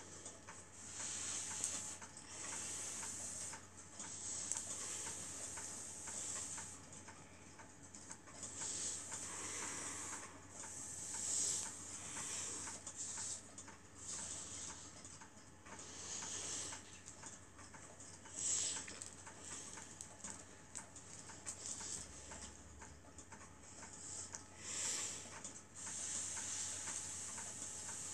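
Battery-operated lucky cat (maneki-neko) waving its paw: the small mechanism inside ticks faintly and steadily with each swing. Irregular soft hissing swells come and go over the ticking.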